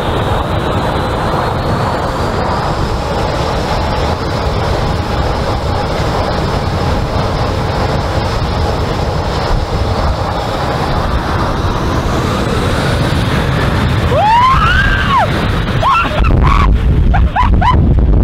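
Jet airliner's engines spooling up to takeoff thrust: a steady roar with a whine that climbs in pitch. Near the end, several high shrieks ring out as the jet blast buffets the microphone in heavy gusts.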